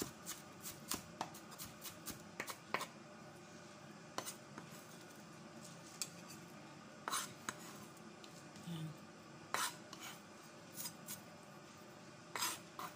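Chef's knife knocking on a wooden cutting board as red onion is finely minced, in irregular strikes that come closely together at first and then more sparsely. The minced onion is pushed off the board into a plate with the knife.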